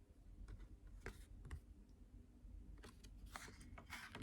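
Faint handling noises: a scattering of light clicks and scuffs as a paper instruction booklet is handled.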